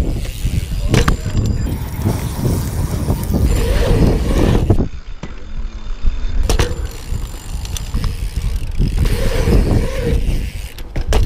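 Mountain bike rolling and carving on skatepark concrete, heard through a GoPro's microphone with heavy wind buffeting and tyre rumble, and sharp knocks from the bike over the concrete. The noise drops away briefly about five seconds in.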